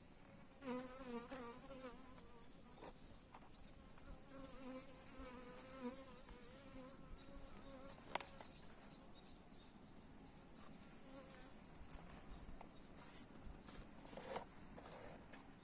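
Honeybees buzzing: a wavering wingbeat hum, strongest in the first half and fading away, with a few sharp clicks.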